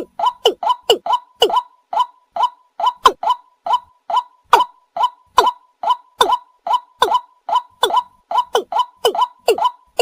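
Lure recording of a paddy-field rail calling: the same short call, falling in pitch, repeated steadily about two to three times a second.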